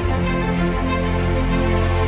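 Background music with held notes and a steady low bass.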